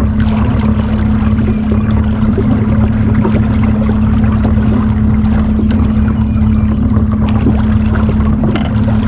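Boat's electric trolling motor running with a steady, even hum.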